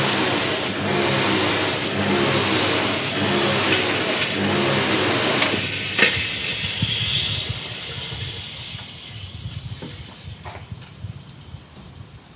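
Electric pressure washer starting up: the motor and pump hum under a loud hiss of water jetting from the lance. The first start is a bit lumpy. The sound holds for about six seconds, then fades away over the next few.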